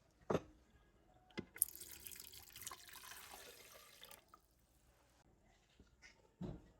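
Water running for about two and a half seconds, set between a few sharp knocks.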